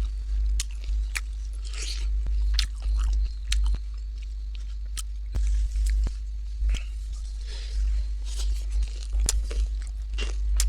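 A person eating close to the microphone: bites and chewing, with sharp clicky crackles at irregular moments over a steady low hum.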